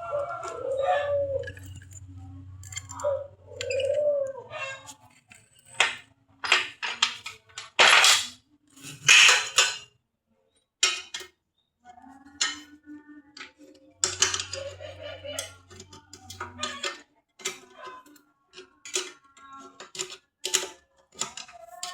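A dog whines in the first few seconds. Then loose metal parts and tools clink and clatter in a long, irregular run of sharp knocks as a scroll saw is taken apart.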